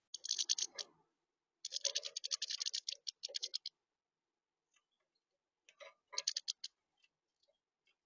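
Goldfinches pecking seed on a plastic feeder tray: three bursts of rapid, sharp taps and clicks, the longest lasting about two seconds.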